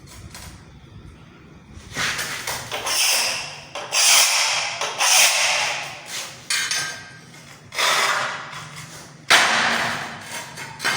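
Ceramic tile being cut: a series of about six short, harsh scraping bursts, each starting suddenly and lasting around a second.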